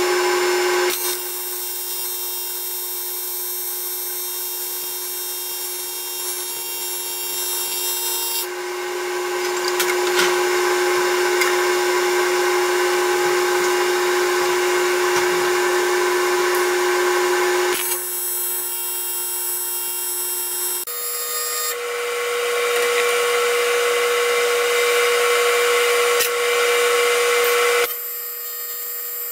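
AC TIG welding arc on aluminium, a PrimeWeld 325X, tacking and welding the joint: a steady, high-pitched electrical buzz. It stops and restarts several times, changing in loudness, and steps up in pitch about two-thirds of the way through.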